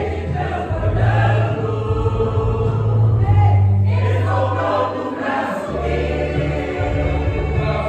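A church choir singing a gospel hymn in several voices, over sustained low bass notes that change every few seconds.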